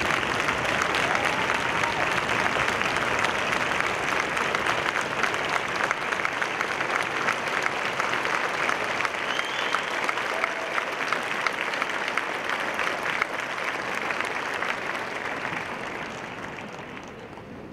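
Large crowd applauding with steady clapping that fades out near the end.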